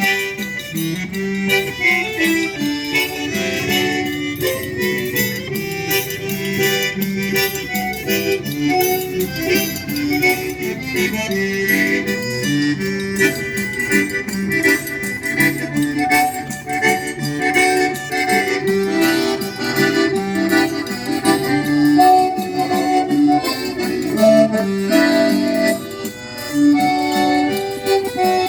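Sanfona (button or piano accordion) playing a lively tune with chords and a steady rhythmic beat, in the Brazilian forró style.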